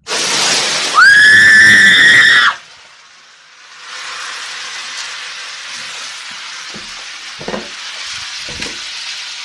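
Water thrown into a pan of smoking-hot oil erupts at once into a fireball with a loud whoosh. A high-pitched scream rises and holds for about a second and a half, then the burning oil keeps up a steady sizzling hiss, with a few faint knocks near the end.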